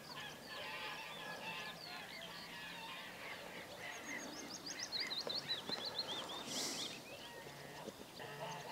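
Wild birds calling in the background, mostly short chirps, with one bird giving a run of quick, repeated falling notes about four to six seconds in.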